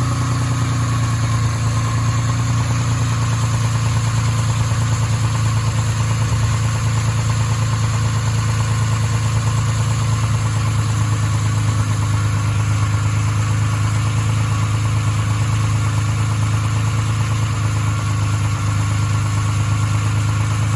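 Nissan 350Z's 3.5-litre VQ35DE V6 idling steadily; the owners say the engine has rod knock, a sign of a worn or damaged connecting-rod bearing.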